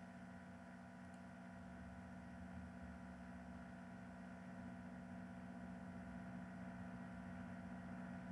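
Faint steady electrical hum with a low hiss: the recording's background tone, with no other sound.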